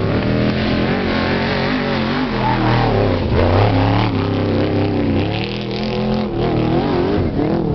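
Off-road trophy truck's race engine revving hard as it passes close by, its pitch rising and falling, loudest about three and a half seconds in.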